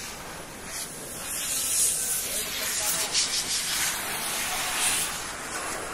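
Loud hissing, like grooming spray or blown air, swelling about a second in, flickering at its peak and easing near the end.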